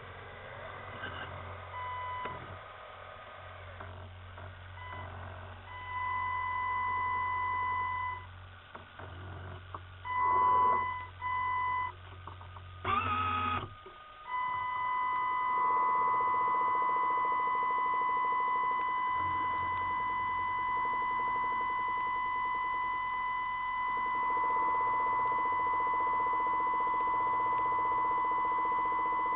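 Electric whine from a model submarine's drive or electronics, picked up by its onboard camera. It is a steady high-pitched tone that starts and stops in short stretches over a low hum at first, with a brief rising sweep just before halfway, then runs on unbroken.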